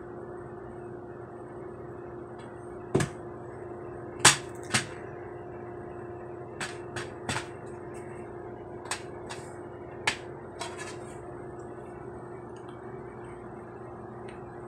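Plastic DVD keep case being handled and opened, with a series of sharp plastic clicks and snaps as the case opens and the disc comes off its hub, over a steady low hum.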